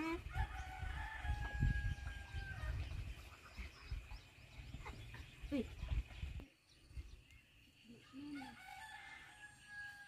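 A rooster crowing twice: one long crow about half a second in and another near the end. A low rumble runs underneath and stops abruptly about six seconds in.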